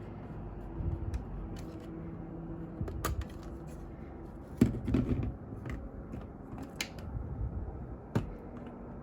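Plastic clicks and soft knocks from handling a Canon EOS Rebel XS 35mm film camera body and its parts, with a few sharp snaps scattered through.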